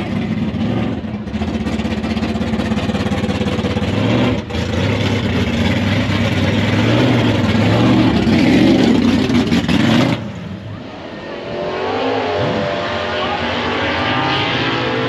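Stock and Super Stock drag race cars running under full throttle on a pass, a loud steady engine sound with a brief dip about four and a half seconds in, cutting off sharply about ten seconds in. Quieter engine sound with a wavering pitch follows.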